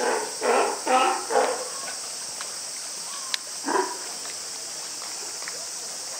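California sea lion barking: four short barks in quick succession, then one more about two seconds later.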